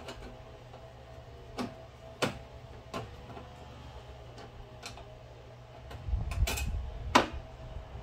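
Screwdriver working the screws out of an espresso machine's sheet-metal back panel: scattered light metallic clicks and ticks a second or so apart. A low rumble comes in about six seconds in.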